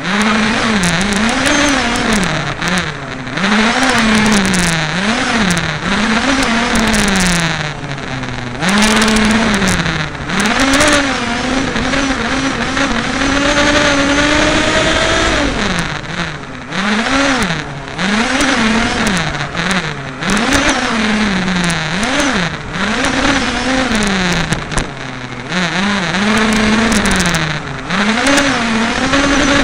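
Small two-stroke petrol engine of a 1:5 scale RC race car, heard on board, revving up and down again and again as the car accelerates and lifts off through the corners. Its pitch rises and falls roughly once a second, with a longer pull held high around the middle.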